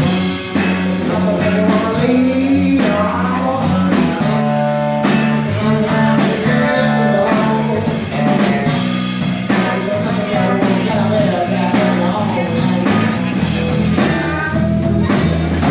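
Live band playing an upbeat blues-flavoured rock and roll number, with a steady drum beat, bass, guitar and a singing voice.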